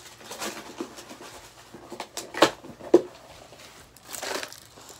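A few short knocks and bumps with rustling of clothing as children move about close by. A longer brushing rustle comes about four seconds in, as a shirt sweeps close over the microphone.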